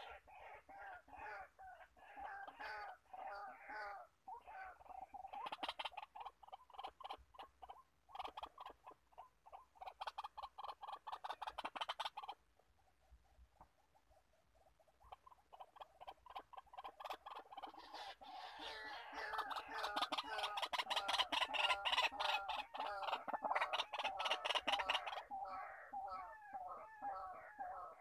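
White-breasted waterhen calling: long runs of rapid, repeated harsh notes, several a second, broken by a pause of about three seconds midway and loudest in the second half.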